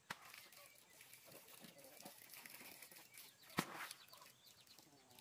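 Quiet outdoor background broken by a few knocks, the loudest a sharp thud about three and a half seconds in, as earth or stone is dropped into muddy water at the breached pond bank.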